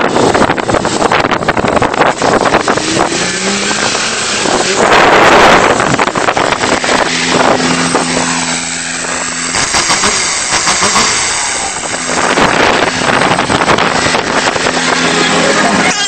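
Dodge pickup's Cummins straight-six diesel engine driving up and running close to the microphone, loudest about five seconds in, then settling into a steady low running note.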